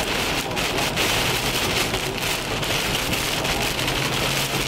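Heavy rain drumming steadily on a car's roof and windshield, heard from inside the moving vehicle during a severe thunderstorm.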